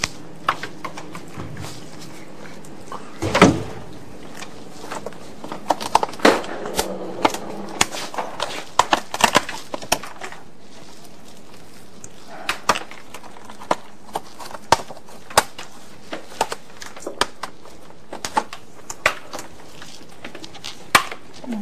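Irregular clicks, knocks and clatter of objects being handled and set down, with a louder knock about three and a half seconds in, over a steady low hiss.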